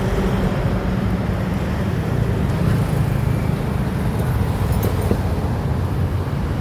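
Motorbike engine running steadily while riding, with road and wind noise.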